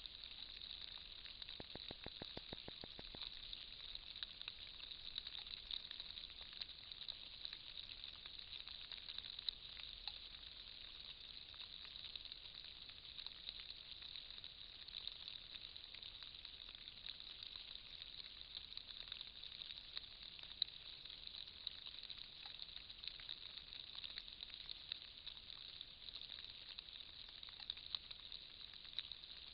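Faint steady hiss from a trail camera's microphone, with scattered faint crackles and a quick run of clicks about two seconds in.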